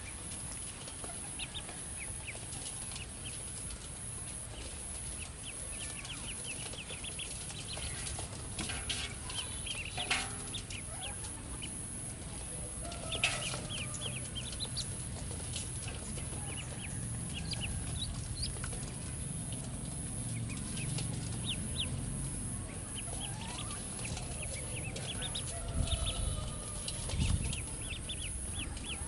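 Ducklings peeping: many short, high peeps, with a couple of sharp knocks about ten and thirteen seconds in and low thumps near the end.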